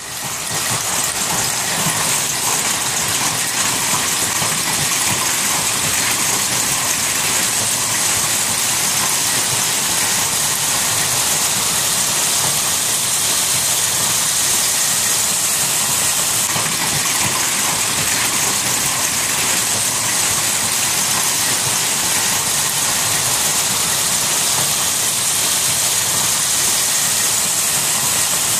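Heavy rain mixed with hail pouring down, a dense, steady hiss of drops and hailstones striking the ground.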